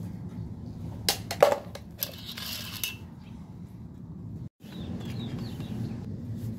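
A toy garbage truck's plastic bin clicks and knocks about a second in, followed by a short rustling scrape. Later faint bird chirps sound over a steady low background rumble.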